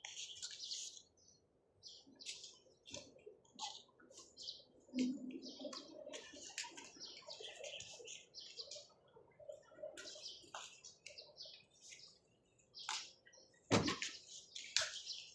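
Birds chirping in many quick, short, high calls throughout, with one sharp knock near the end.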